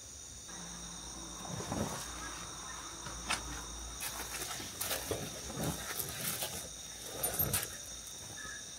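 A steady night chorus of insects, crickets or similar, shrilling at several high pitches. It is overlaid from about half a second in by scattered close rustling, clicks and soft knocks of something being handled.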